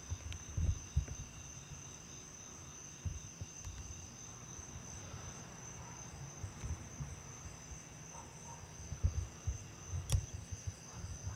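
Steady chorus of crickets, a continuous high trill. Under it, irregular low thumps and rustles of camera handling, with a sharp click about ten seconds in.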